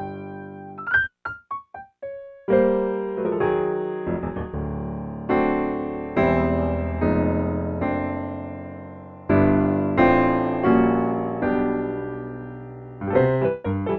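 Solo piano accompaniment to a silent film. A few short detached notes open it, then full chords are struck and left to ring and fade, and quick short notes return near the end.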